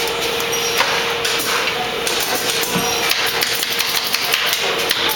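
Irregular sharp clicks and knocks of canvas-stretching work on a gallery stretcher, tools and frames being handled, over a steady hum.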